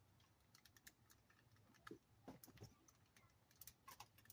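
Faint, irregular clicks and light knocks of hands working at plastic dashboard parts, trying to work a piece loose.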